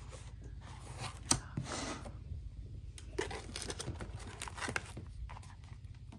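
Notebooks and plastic-wrapped stationery being moved about in a desk drawer: paper and plastic rustling with light knocks and clicks in short separate bursts, the longest rustle about a second and a half in.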